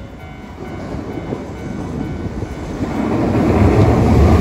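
Hiroden 3900-series articulated tram approaching and passing close by, its rumble on the rails growing steadily louder. A faint whine falls slowly in pitch near the end. Wind buffets the microphone.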